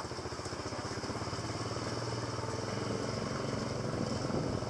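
A small motorbike engine running steadily while the bike is under way, growing slightly louder.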